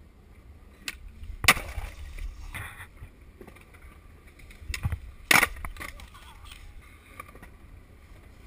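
Skateboards clacking on concrete: two loud, sharp cracks about a second and a half and five seconds in, with smaller knocks between, over a steady wind rumble on the microphone.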